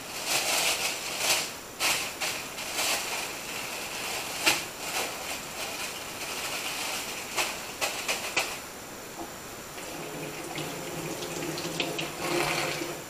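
Clear plastic bags crinkling and rustling as they are handled, with a few sharp clicks. About ten seconds in, a kitchen tap runs into a stainless-steel sink as hands are rinsed under it.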